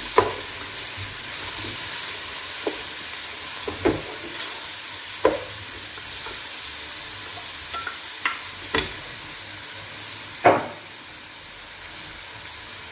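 Diced onions and spring onions frying in a metal pot with a steady sizzle, while a wooden spatula stirs them and knocks against the pot at irregular intervals; the loudest knock comes near the end.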